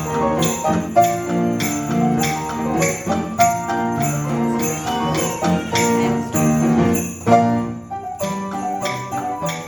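Instrumental music with sleigh bells shaken on a steady beat over pitched instruments playing sustained notes. The bells drop out briefly about eight seconds in.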